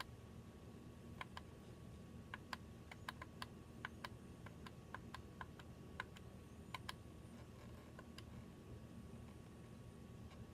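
Light, irregular clicks of buttons or keys being pressed on a small electronic device, about twenty in all, over a faint steady hum.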